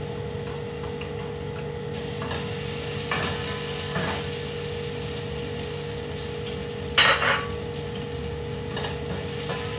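Wooden spatula stirring and scraping shredded garlic and ginger as they fry in oil in a stainless steel pot, with one louder clatter about seven seconds in, over a steady hum.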